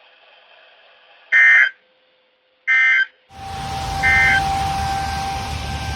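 Three short, loud buzzy digital data bursts about a second and a half apart: the SAME end-of-message code that a NOAA Weather Radio sends to close a tornado warning. About halfway through, an outdoor tornado siren comes in as a steady tone over wind rumble, and the third burst sounds over it.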